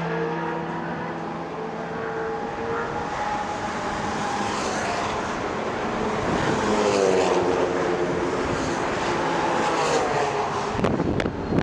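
Sports cars' engines going past at speed on a race track: one engine holds a steady note for the first few seconds, then a second car passes about six seconds in, its engine note falling as it goes by. Wind buffets the microphone near the end.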